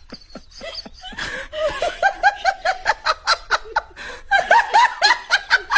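A person laughing hard in quick repeated bursts, about four a second, growing louder after the first second or so.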